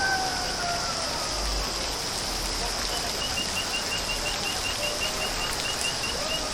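Water showering steadily down Sahastradhara's limestone waterfall, with a steady high thin whine above it. About halfway through a bird starts a run of quick high chirps, about four a second.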